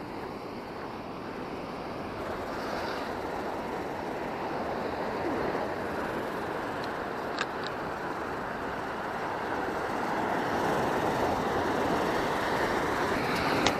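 Ocean surf breaking and washing over shoreline rocks, a steady rushing that swells louder in the second half.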